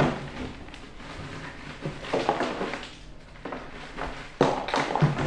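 Ice cubes tumbling out of a plastic bag and clattering into a large clear plastic container, with the bag crinkling. The clatter comes in several bursts, the loudest near the end.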